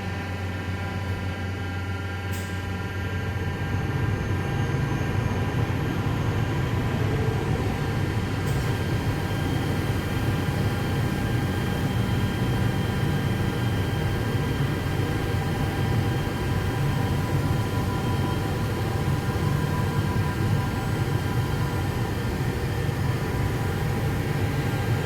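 A CNC surface grinding machine running: a steady machine hum with several fixed whining tones over a low rumble, which grows louder about three to four seconds in and then holds steady.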